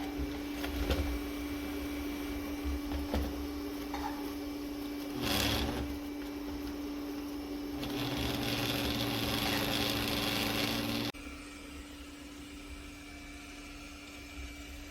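Roborock Qrevo Curv S5X robot vacuum running with a steady motor hum and a brief whoosh about halfway. It grows louder about 8 s in, then cuts off abruptly about three seconds later, leaving a faint hiss.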